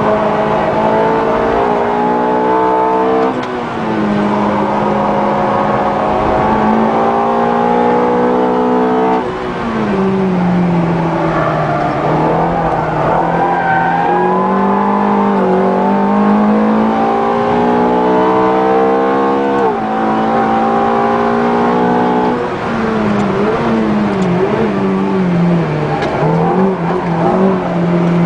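Ferrari F430's V8 engine under hard acceleration, heard from inside the cabin: the revs climb and drop sharply at upshifts about three seconds in and again about twenty seconds in, and fall away twice as the car slows.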